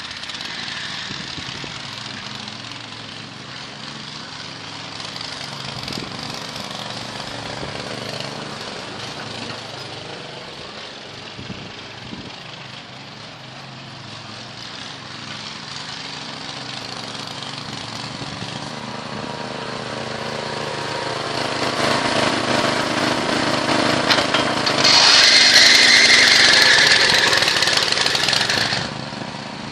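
Small single-cylinder walk-behind tractor engine (6.5 hp) running in a VAZ 2109 car, growing louder from the middle on and loudest near the end as it revs up, then falling away sharply just before the end.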